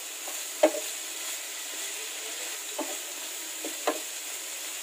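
Pork pieces and garlic sizzling in a non-stick frying pan, the small amount of added water nearly cooked off so the meat is frying. A wooden spatula stirs and scrapes the pan about four times, the loudest stroke under a second in.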